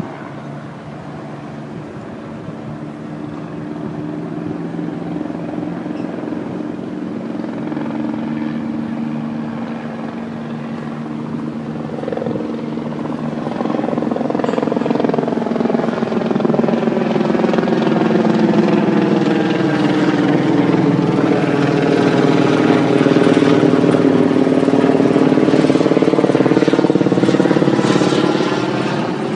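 Helicopter approaching: the rotor and engine sound grows steadily louder, its tones bending in pitch as it comes close, then begins to fall away near the end.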